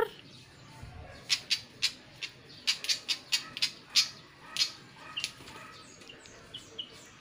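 A fantail giving a quick run of about a dozen sharp, short scolding calls, then a few fainter chirps near the end, as it mobs a cat.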